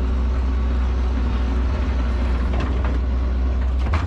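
New Holland L150 skid steer's diesel engine running steadily with a deep drone. There is a sharp knock near the end.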